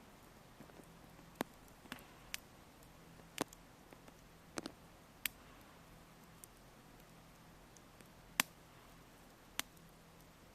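Wood campfire crackling: about ten sharp pops at irregular intervals over a faint steady hiss.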